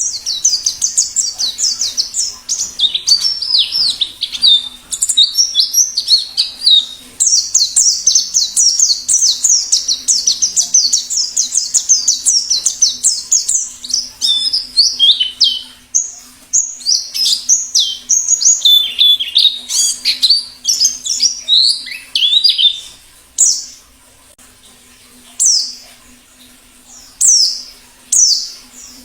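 White-eye (pleci) singing a fast, high, twittering song in long unbroken runs. Near the end it breaks into single sharp down-slurred calls a couple of seconds apart. A faint steady hum runs underneath.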